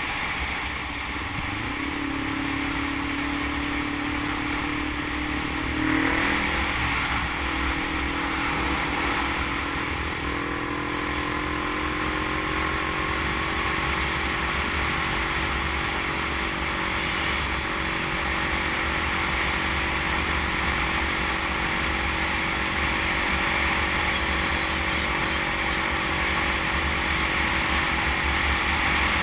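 Motorcycle engine running at road speed under a steady rush of wind on the microphone. The engine note changes abruptly about six seconds in, then climbs slowly as the bike gathers speed.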